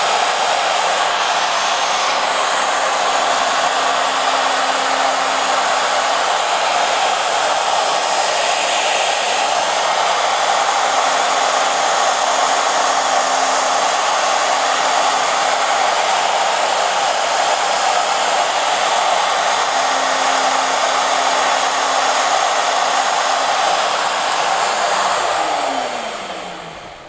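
Festool Shaper Origin handheld CNC router cutting wood, its spindle and dust extraction running steadily. About 25 seconds in the motor shuts off and spins down with a falling whine.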